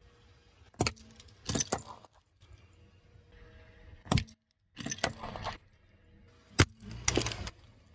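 Plastic LEGO minifigures cracking and crunching under a car tyre: several sharp snaps, each followed by a short spell of crackling as the pieces break apart and scatter.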